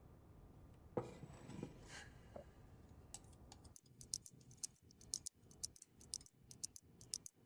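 Wooden chopsticks clicking lightly against a ceramic noodle bowl: an irregular run of small, quick clicks that starts a few seconds in, over quiet room tone.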